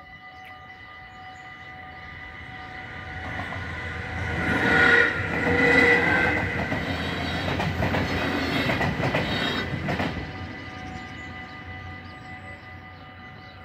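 NS ICMm (Koploper) electric multiple unit passing over a level crossing: its rumble and wheel clatter build from about three seconds in, peak around five to six seconds and fade after about ten seconds. The crossing's electronic warning bell rings steadily throughout.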